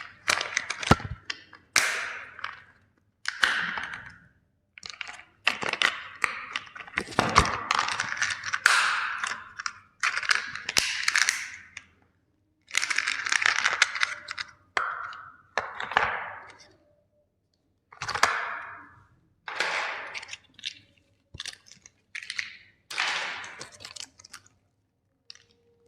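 Plastic toy steam engine trains being crushed, cracking and crunching in repeated bursts with sharp snaps and brief pauses between them.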